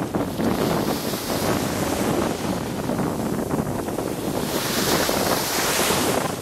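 Small waves washing up a sandy beach, with wind buffeting the microphone; a wash of foam hisses in loudest about two thirds of the way through.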